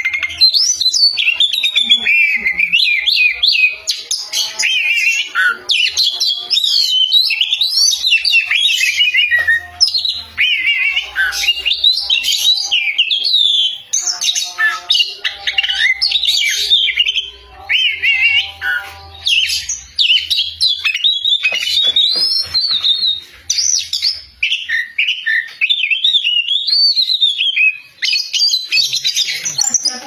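Oriental magpie-robin (kacer) singing loudly and without pause: a fast, varied stream of high whistles, warbles and chirps.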